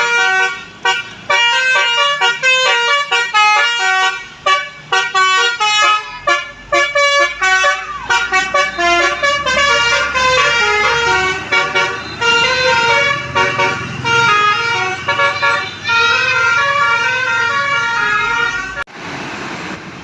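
Bus telolet musical air horn playing a fast melody of short stepped notes, over and over, with an engine rumbling underneath. It stops abruptly near the end, leaving quieter road noise.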